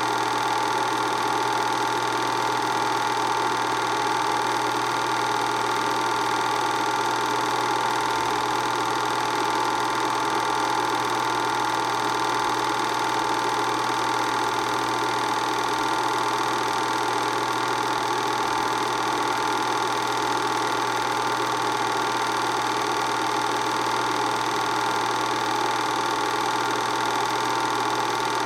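Film projector running steadily, its motor and film mechanism giving an even whir with a steady whine.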